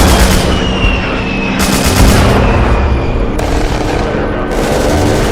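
Mixed battlefield sound effects: dense gunfire and booms over a constant low rumble, with a thin whistle falling slowly in pitch over the first three seconds.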